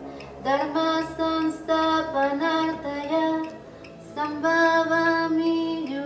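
A woman chanting a mantra in long, held notes that step between pitches, with a brief lull about three seconds in.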